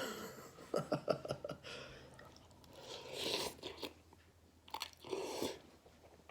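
A person chewing a mouthful of cup noodles close to the microphone: a quick run of wet mouth clicks about a second in, then a few short, noisier mouth sounds.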